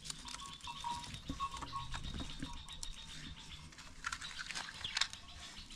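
Dry sticks of firewood clicking and knocking together as they are handled and stacked, with a few sharper clicks about four to five seconds in.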